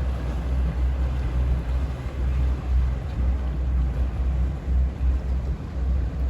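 Wind buffeting the microphone outdoors: a loud, low, gusting rumble that swells and dips unevenly.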